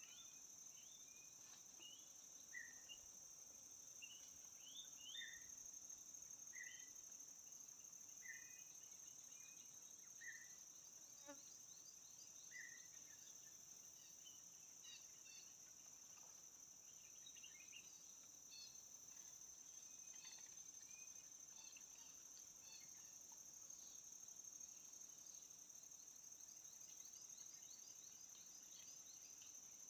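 Faint insect drone, a steady high hum. Over it, short chirps repeat about every second and a half for the first dozen seconds, then scattered quick high chirps follow.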